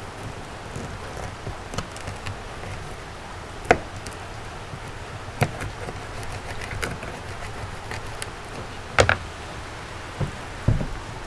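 Knife chopping a skipjack herring into cut bait on a plastic cutting board: a handful of sharp knocks spaced a second or more apart, the loudest a double knock about three-quarters through, with a few duller thumps near the end.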